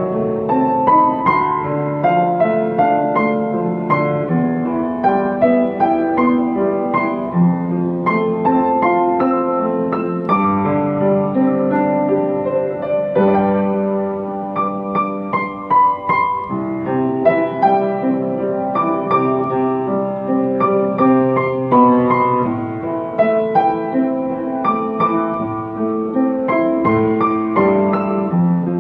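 Upright piano played solo, a continuous melody over chords in a pop ballad arrangement.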